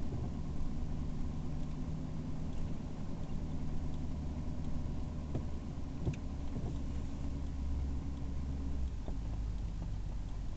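Vehicle engine and road noise heard from inside the cabin while driving: a steady low hum whose pitch drops about nine seconds in, with a few faint clicks.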